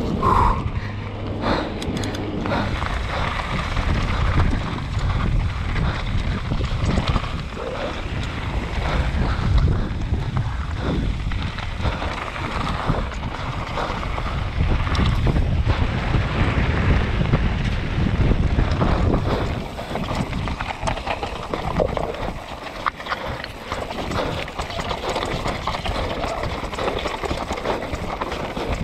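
Wind buffeting the microphone at speed over the rattle and crunch of a mountain bike and its tyres running down loose scree and rock, with many small knocks from the rough ground. It is louder and rougher for the first two-thirds, then eases somewhat.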